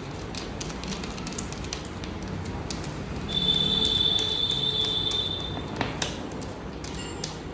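Small metal clicks of chair bolts and washers being picked out of a plastic seat base and handled in the palm, with a quick rattle near the end. A steady high-pitched tone sounds for about two and a half seconds in the middle and is the loudest sound.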